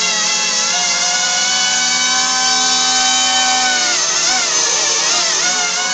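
Small electric multirotor's motors and propellers running with a steady high whine, the pitch wavering up and down over the last two seconds.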